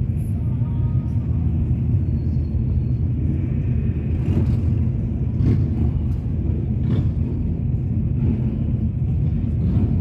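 A procession of cruiser motorcycles, a trike among them, rumbling steadily as they ride past in a group.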